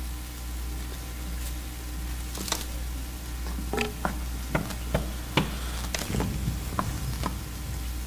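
Scattered knocks and taps on a wooden stage-prop door, several in quick succession about halfway through, over a steady low electrical hum.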